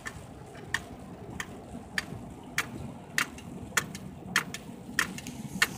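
Turn-signal indicator clicking steadily, about one and a half clicks a second, inside a pickup's cab, over the steady low noise of the engine and tyres on the road.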